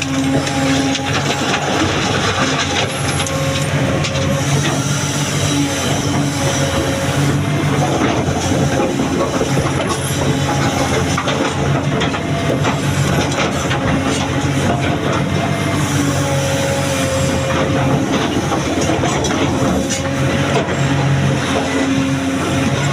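Hydraulic excavator's diesel engine working steadily under load, with frequent clanks and rattles of metal and stone throughout.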